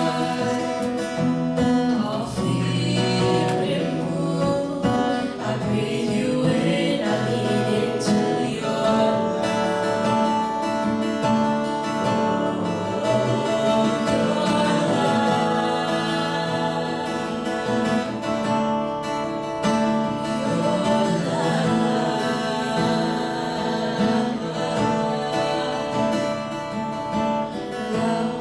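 Music: singing over a plucked and strummed guitar accompaniment, with long held notes.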